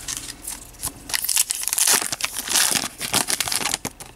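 A 2015 Upper Deck Goodwin Champions trading-card pack wrapper being torn open and crinkled by hand, as a run of crackling rustles that is densest in the middle.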